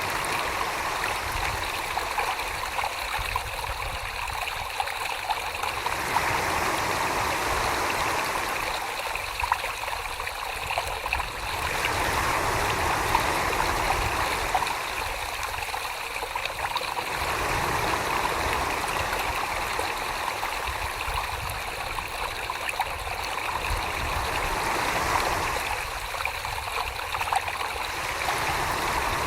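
Wet clay and water on a spinning potter's wheel under the hands: a steady watery rushing noise whose tone changes abruptly every few seconds.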